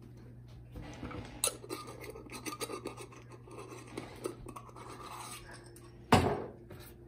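Small clicks and scratchy scrapes of spice containers being handled and their caps twisted open, over a faint steady hum, with one short louder rush of noise near the end.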